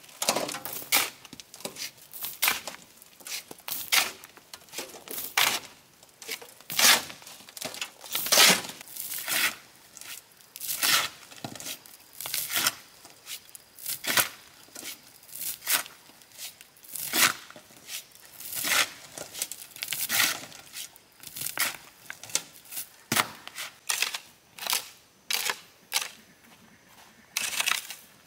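A steel shovel scraping into and scooping dry soil and gravel from a metal truck bed, a crunching scrape repeated roughly once a second. Near the end a hoe chops and drags through loose soil.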